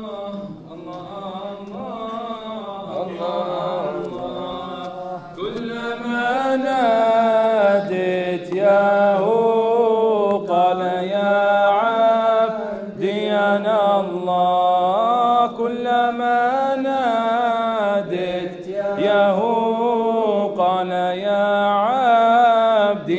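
A man singing an Arabic qasida (nasheed) in long, slow, ornamented melodic phrases, over a steady low hum. The voice grows louder about five seconds in.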